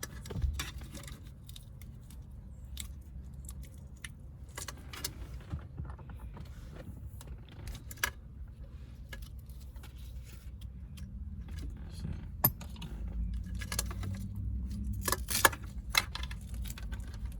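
Small clicks, ticks and rustles of a car wiring harness being handled while a razor blade lightly slits its cloth harness tape. Underneath is a steady low rumble, and the clicks come thicker near the end.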